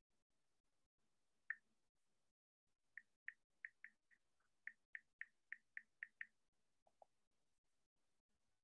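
Faint typing on a computer keyboard: a single key click, then a run of about a dozen clicks at about three a second, and two lower-pitched clicks shortly after.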